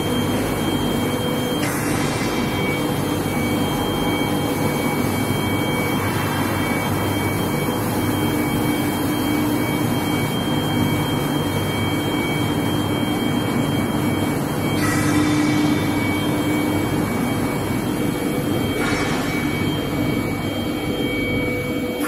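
Steel bar induction heat treatment line running: a loud, steady industrial hum with several constant whining tones above it, and now and then a brief rush of hiss.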